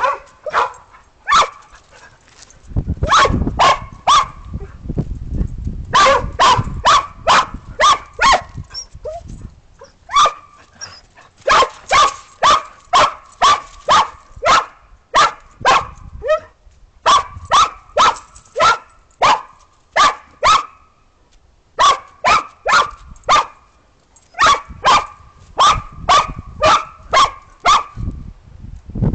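A dog barking in runs of sharp, loud barks, about two to three a second, with short pauses between runs. A low rumble sits under the barking from about three to six seconds in.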